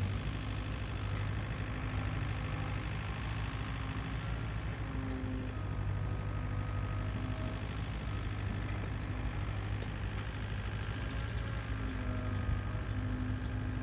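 Caterpillar 305 mini excavator's diesel engine running steadily while it digs. A higher tone comes and goes several times over the engine hum.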